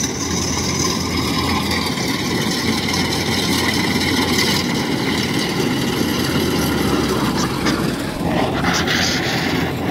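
Rice combine harvester's diesel engine running steadily under load as it drives along the field edge cutting rice.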